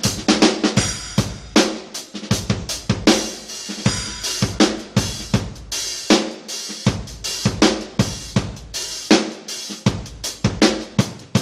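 Drum kit played on its own: kick, snare, hi-hat and cymbals struck in quick succession, with the cymbals ringing between hits.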